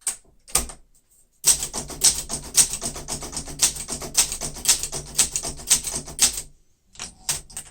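1972 Olympia SM9 manual typewriter being typed on: type bars striking the platen, first two single strokes, then a fast, continuous run of keystrokes for about five seconds, and a few more strokes near the end after a short pause.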